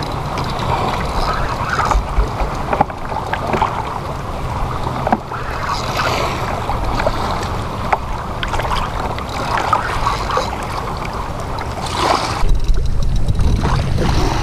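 Open-ocean water sloshing and lapping around a sit-on-top kayak's hull, with wind on the microphone and a few small knocks. About twelve seconds in, the low wind rumble on the microphone grows louder.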